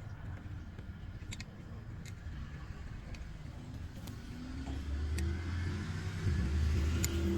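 Low engine rumble like a nearby vehicle, growing louder over the last few seconds, with a few short light clicks.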